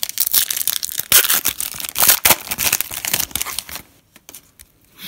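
Foil wrapper of a Donruss football card pack being torn open by hand and crinkled as the stack of cards is pulled out: about four seconds of dense tearing and crackling.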